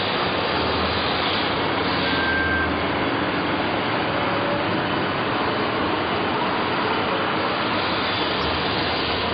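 Straight knife blade grinder running, a steady, even mechanical noise of its motor and grinding head.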